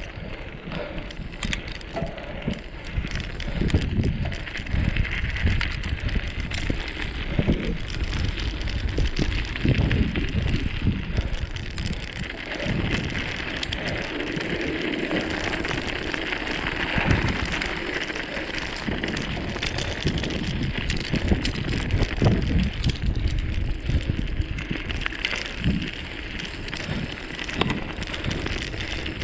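Wind buffeting the microphone in uneven gusts, over a steady crackling rustle of movement along the ground.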